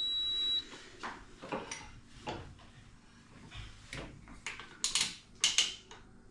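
Clicks and knocks of a mixer grinder's jar and lid being handled and fitted onto the base, with a quick run of sharp clicks about five seconds in.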